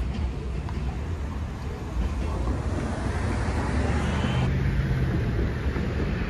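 Steady low rumble of road traffic as cars drive over a railroad crossing. About four and a half seconds in it switches abruptly to the rumble of a freight train moving away down the track.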